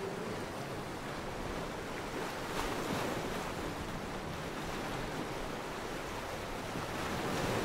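Steady rush of wind and sea water: an even noise with no clear tone.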